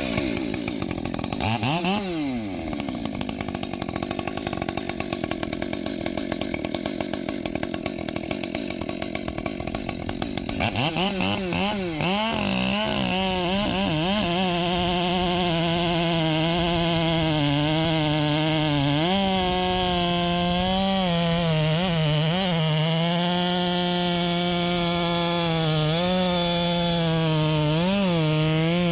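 Husqvarna 564xp two-stroke chainsaw with a 32-inch bar and full-comp chain, idling with a quick rev blip about two seconds in. From about eleven seconds it opens to full throttle and holds a steady high pitch that dips and recovers repeatedly as the chain loads up cutting spruce.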